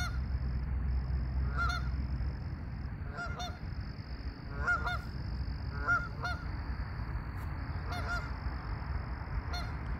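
Geese honking, about six short calls spaced one to two seconds apart.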